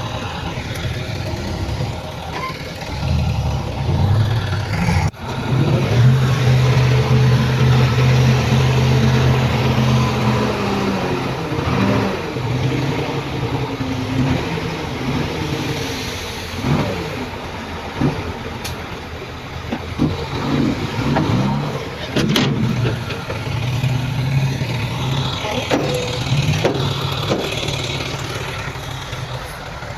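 Heavy diesel earthmoving machinery, bulldozer and dump trucks, running and revving, the engine note rising and falling. Sharp metallic clanks and knocks come in the middle.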